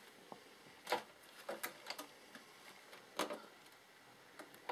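Scattered light clicks and taps of hands handling fabric on a sewing machine bed while positioning it under the presser foot, with two louder knocks about a second in and about three seconds in.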